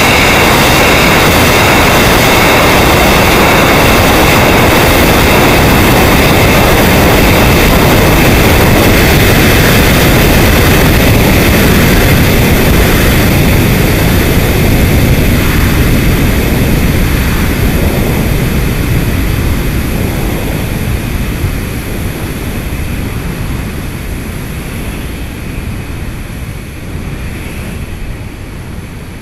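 Onboard sound of a liquid-oxygen/ethanol sounding rocket in flight: a loud, steady rushing roar from the vehicle and its airflow, heard through the onboard camera. It holds level, then fades steadily over the last ten seconds or so.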